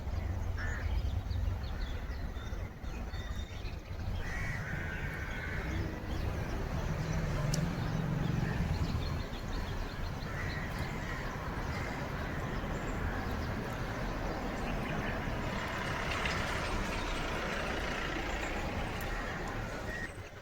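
Neti pot nasal rinse: warm salt water running through the nose and out of the other nostril, with breathing through the mouth. The noise is steady throughout.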